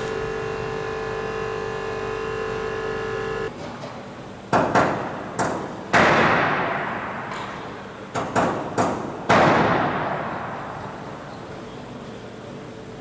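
A steady hum of several held tones that cuts off abruptly, followed by two clusters of heavy bangs, three or four in each. Each bang rings and echoes away over a second or more, and the loudest comes at the end of each cluster.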